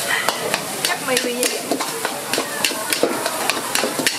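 Metal spatula repeatedly scraping and clinking against a wok as fried rice is stir-fried, over a steady sizzle.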